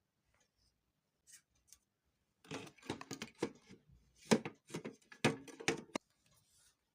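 Handling noise from hands and tools working on a speaker: two faint clicks, then from about two and a half seconds in a quick run of knocks, clicks and scraping for about three and a half seconds.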